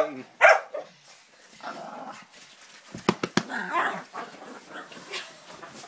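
A small dog in frantic play, barking sharply about half a second in, then growling in short bursts, with a quick run of thuds around three seconds in.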